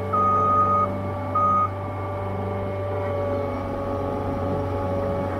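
Skid loader engine running steadily with a constant whine, its backup alarm beeping twice near the start as it reverses.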